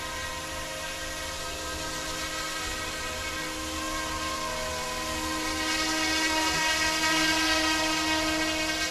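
UXIANG F09-S scale UH-60 Black Hawk RC helicopter hovering, its electric motor and rotor blades giving a steady high whine. It grows louder a little past halfway as the helicopter comes closer.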